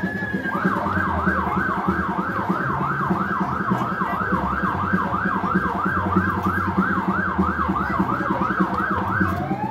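Emergency vehicle siren switching from a slow wail into a fast yelp about half a second in, sweeping up and down about three times a second, then going back to a slow rising wail near the end.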